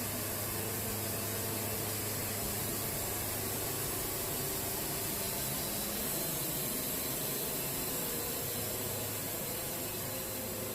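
Wood-Mizer portable band sawmill running steadily, its blade sawing through a red cedar log: an even, high hiss over a steady low engine hum.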